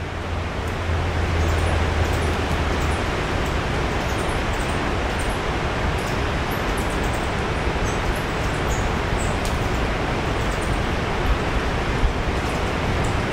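Steady rushing outdoor noise with many short, high bird chirps scattered over it.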